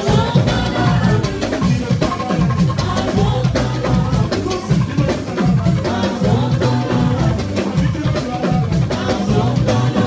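Live gospel dance music: a drum kit and percussion keep a busy beat under a man singing into a microphone.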